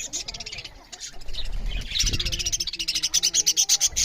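Budgerigars chattering: a busy mix of rapid high chirps and warbles, louder and denser from about halfway through.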